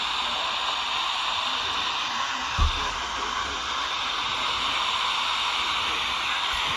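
Steady hiss of radio static with no clear voice, and a single low thump about two and a half seconds in.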